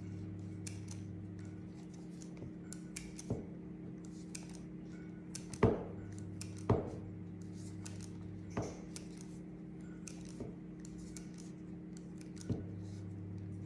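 Kitchen scissors snipping through old, dry Arabic flatbread (khubz): several sharp snips a second or two apart, the loudest about halfway through, with faint crackling between them. A steady low hum runs underneath.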